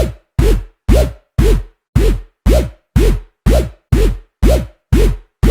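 Electronic dance music with a heavy drum-machine beat: evenly spaced hits about two a second, each a deep thump with a short tone that swoops up and back down.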